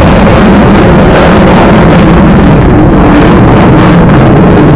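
Steady roar of a Thunderbirds F-16 Fighting Falcon's jet engine, loud enough to overload the microphone.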